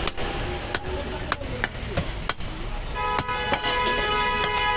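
Butcher's cleaver chopping goat meat on a wooden log chopping block: sharp chops, roughly two a second. About three seconds in, a long steady vehicle horn sounds over the chopping.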